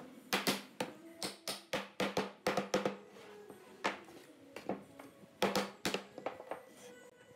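Hardwood block knocking on a glued pine cabinet door frame to seat its rails and stiles: a quick run of about a dozen sharp wooden knocks over the first three seconds, then a few scattered knocks.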